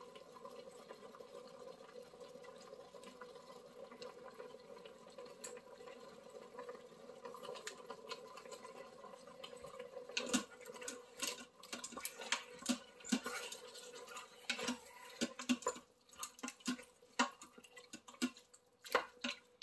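Beef cubes cooking in their own juices in an Instant Pot's stainless steel inner pot on sauté, a faint steady wet simmer. About halfway in, a wooden spoon starts stirring, with irregular scrapes and knocks against the pot.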